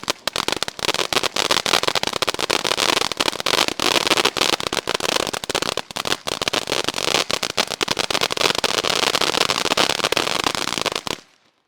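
Ground firework fountain burning: a steady hiss thick with rapid crackling and sharp pops. It cuts off suddenly near the end.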